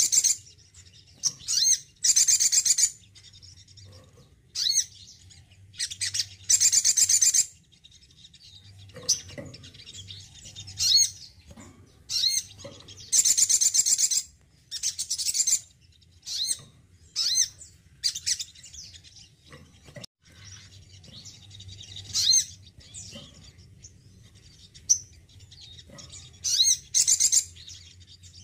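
Male olive-backed sunbird singing: a string of short, high-pitched trilled phrases, each about a second or less, with brief pauses between them.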